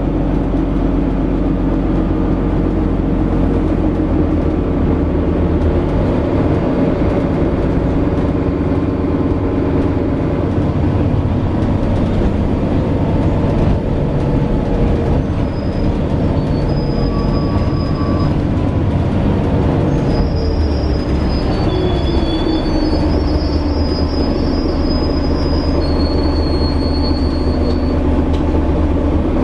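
Setra S415NF city bus running on the road, heard from inside the passenger cabin: a steady low engine and road rumble. A drivetrain whine slowly falls in pitch through the second half, and thin high squeaks come and go from about halfway to near the end.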